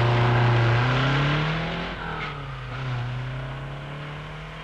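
Car engine accelerating away: the pitch rises for about two seconds, drops at a gear change, then climbs again as the sound fades into the distance.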